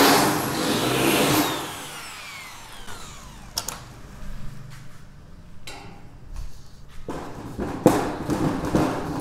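Handheld electric drill running as it bores a pilot hole through a sheet-metal gutter, released about a second and a half in and winding down with a falling whine. Quieter clicks and handling noise follow, with a sharp knock near the end.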